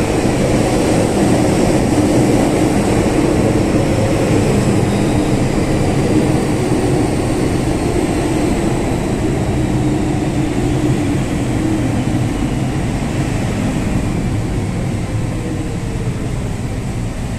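An MTR M-train electric multiple unit pulling slowly into the platform right alongside: a steady, loud rumble of wheels and traction motors. Near the end its pitch falls as the train slows.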